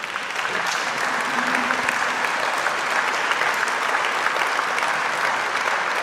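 Audience applauding, the clapping building up within the first second and then holding steady.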